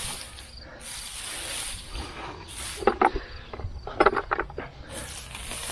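Dry hay mulch rustling and crunching in bursts as it is pulled aside by hand to uncover potatoes.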